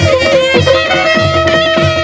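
Panche baja band music: a shawm-like wind instrument plays a wavering, ornamented melody, settling on a held note about halfway through, over a steady drum beat of about three strokes a second.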